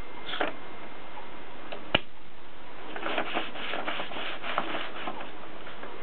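A sheet of paper being fed into a Mercedes typewriter. There is a sharp click about two seconds in, then a few seconds of the paper rustling and rubbing around the platen, with small clicks.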